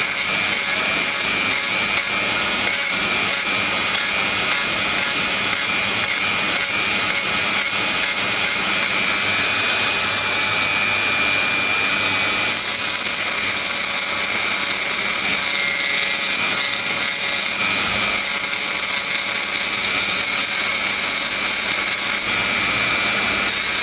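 Handheld rotary engraving tool with a fine bit running at high speed, grinding into a glass tumbler with a steady high-pitched whine. Its tone shifts a few times.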